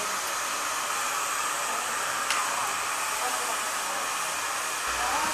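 A steady, even hiss of rushing air, with a single faint click about halfway through.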